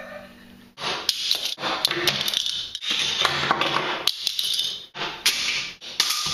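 Clattering and knocking from a homemade chain-reaction machine, as a book tips onto a mousetrap car and other small parts strike and fall, with sharp clicks throughout. It comes in several short stretches that break off abruptly.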